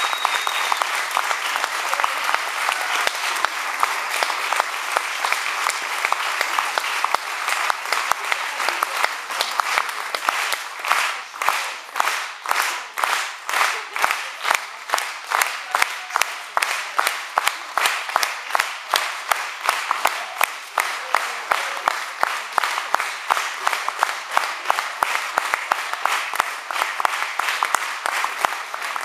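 Audience applauding. About ten seconds in, the scattered clapping falls into rhythmic clapping in unison, about two to three claps a second.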